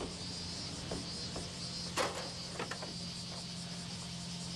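Insects chirring steadily at a high pitch over a low steady hum. A few scattered clicks or knocks come through, the sharpest about two seconds in.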